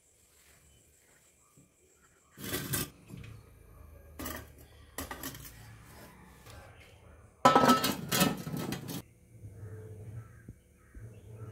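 Metal steamer pot and lid clanking and scraping against each other in several short bursts, the loudest and longest about seven and a half seconds in.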